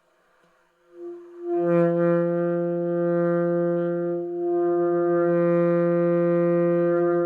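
Saxophone played by a beginner: a short breathy false start about a second in, then one long low note held steady for about six seconds, with a brief dip in the middle.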